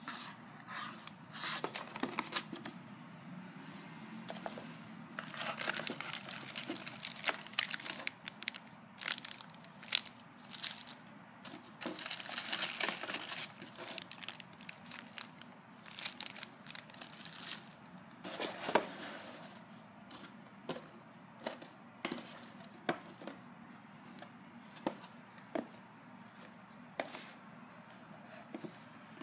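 Plastic packaging bags and cardboard boxes being handled during an unboxing: irregular crinkling and rustling, busiest in the first half, then scattered light taps and clicks as the boxes are moved.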